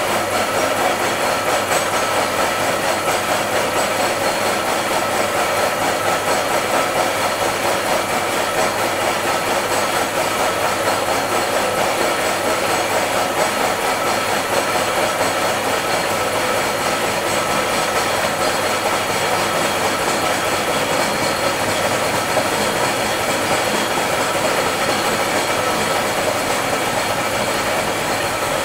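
Vertical knee-type milling machine running steadily as it face-mills the surface of a workpiece clamped in the vise. A loud, even cutting and motor noise carries a few constant high-pitched tones.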